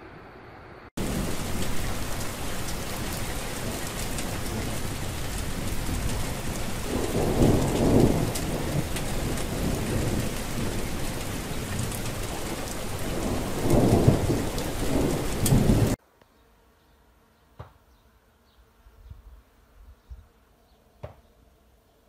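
Steady heavy rain that starts suddenly about a second in, with two swelling rolls of thunder, one midway and one near the end of the rain. The rain cuts off abruptly about three-quarters of the way through, leaving near silence with a few faint ticks.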